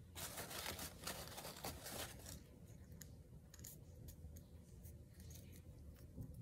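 Fingers rubbing and pressing glued paper onto a small glass bottle: a faint scratchy rustling for the first couple of seconds, then light scattered taps and ticks of handling.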